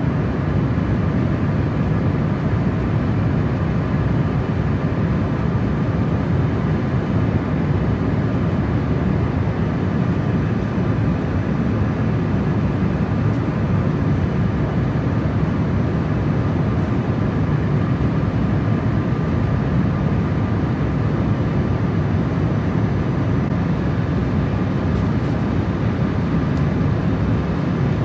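Passenger-cabin noise of an Embraer ERJ170/175 airliner: a steady, even rush of engine and air noise, strongest in the low range, with faint steady tones above it.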